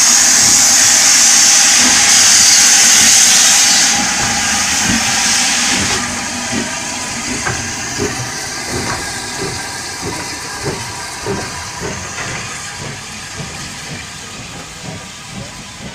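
Steam tank locomotive pulling away from a standstill: a loud hiss of steam from the cylinders for the first few seconds, then a rhythmic knocking that fades as the train moves off.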